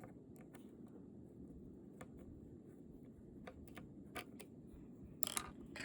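Light scattered clicks and taps of small screws and the guitar's cavity cover plate being handled, with a short rattle about five seconds in, over a faint low hum.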